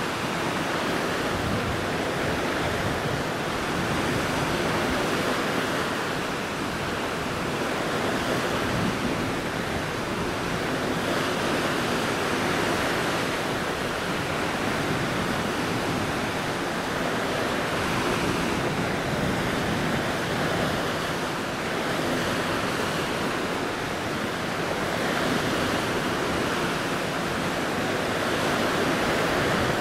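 Steady rush of sea waves and wind, swelling and easing gently every few seconds.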